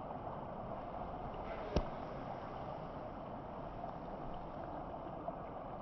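Steady rush of flowing water from a stream, with one sharp click nearly two seconds in.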